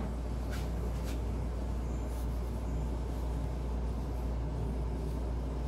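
Steady low hum of a running kitchen appliance, with a few faint clicks about half a second and a second in.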